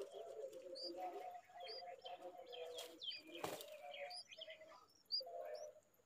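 Birds calling: short high chirps repeated every second or so, over a lower, broken run of longer notes. Two brief knocks come about three seconds in.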